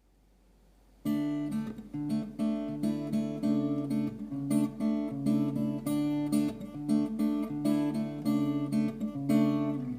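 Acoustic guitar strumming chords, starting about a second in after a brief silence.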